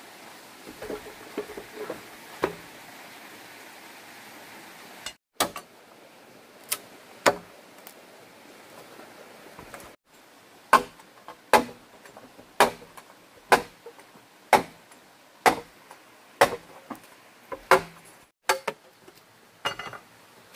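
Machete chopping into green bamboo poles as sharp strikes. A few scattered blows come first, then a steady run of about one strike a second through much of the second half.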